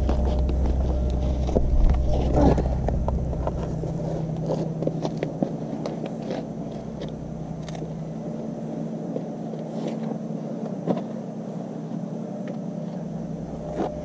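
Steady hum of a distant engine, with scattered footsteps and small scrapes. A deep rumble fades out about four seconds in.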